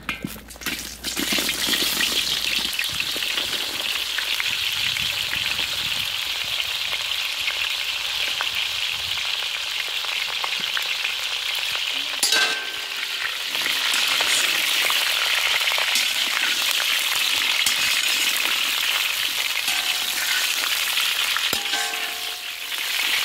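Whole bitter gourds tipped into hot sesame oil in an iron kadai set off a loud sizzle about half a second in, which carries on steadily as they fry. A metal spatula stirring them gives a brief clatter against the pan about halfway through.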